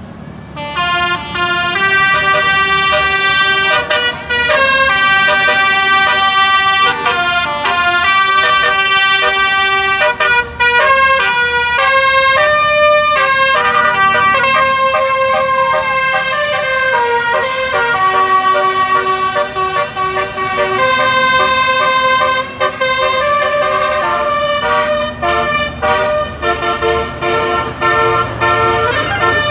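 Multi-tone telolet bus horn playing a melody: a run of loud held notes, each changing pitch every half second to a second, with a few short breaks between phrases.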